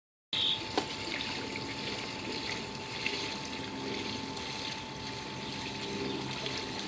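Steady trickling and splashing of pool water from a small waterfall spilling into a backyard swimming pool, with a single click shortly after the start.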